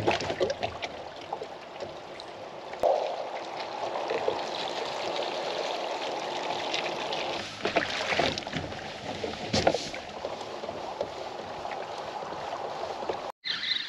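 Water rushing and lapping against a fishing kayak's hull as it moves off the ramp and along the river, with a few short knocks partway through.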